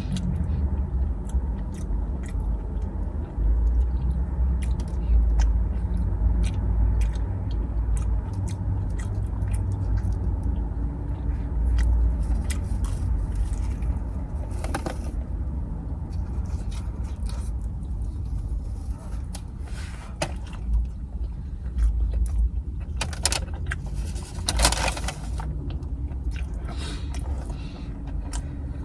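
Close-up eating sounds, chewing and small clicks, over a steady low rumble, with a few louder scraping or rustling noises around the middle and near the end.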